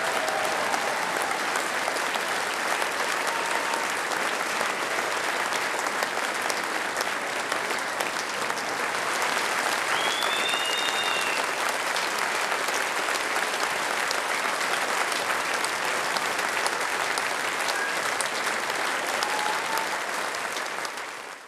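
Large audience applauding steadily, the clapping fading out at the very end.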